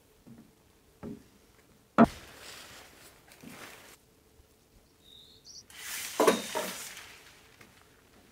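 Camping tarp being pitched: a sharp knock about two seconds in followed by rustling, then a longer rustle and clatter about six seconds in, as poles and fabric are handled on a wooden deck.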